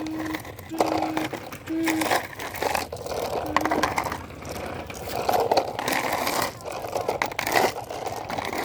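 Gravel crunching and scraping as a toy excavator digs and scoops stones, in repeated bursts, with a few short steady tones in the first half.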